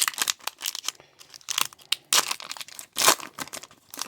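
Wrapper of a hockey card pack being torn open and crinkled by hand: irregular crackling rustles, loudest about two and three seconds in.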